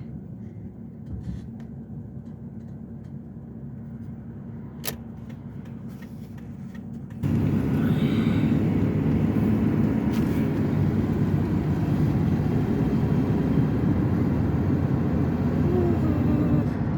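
Truck running on the road, engine and road noise heard from inside the cab, with a single click about five seconds in. About seven seconds in it gets much louder all at once and stays that loud.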